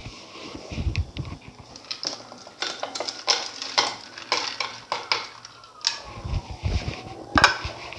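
Ice cubes dropped one after another into milkshake in a glass blender jug: a run of clinks and knocks against the glass, the loudest knock near the end.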